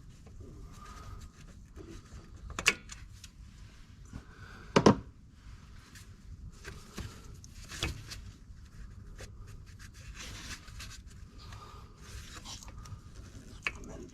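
Handling noises: scattered clicks, knocks and rubbing, with two louder knocks about three and five seconds in.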